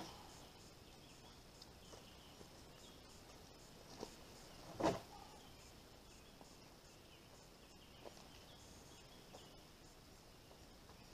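A few soft wooden knocks from a pallet-and-plywood stand being pushed and tested by foot: a small one about four seconds in, a louder one just before five seconds, and a faint one near eight seconds. Under them is a faint, steady, high insect hum.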